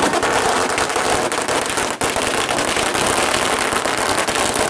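A long string of firecrackers going off, a dense, continuous crackle of rapid bangs.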